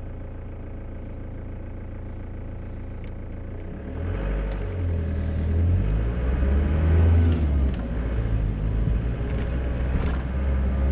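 Campervan driving along a road, its engine hum and road noise heard from inside the cab, getting louder and rougher about four seconds in as the van picks up speed or pulls under load.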